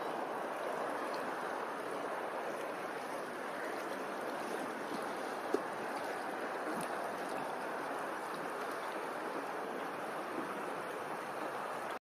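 Steady rushing water like a flowing stream, with one sharp click about five and a half seconds in.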